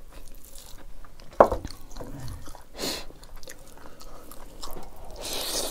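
Close-up eating sounds: chewing rice and dried buffalo meat (sikuti), with fingers squishing and mixing the rice on a steel plate. There is one sharp loud click about a second and a half in, and short hissy mouth or breath noises near the middle and near the end.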